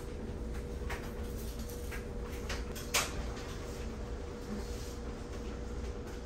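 A few light knocks and clicks of household items being handled and set down on cabinet shelves, the sharpest about three seconds in, over a faint steady hum.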